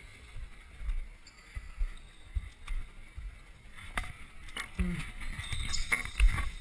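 Thumps and rustle from a camera carried by a running futsal player, with a few sharp knocks on the court, the clearest about four seconds in, and a brief short shout near five seconds.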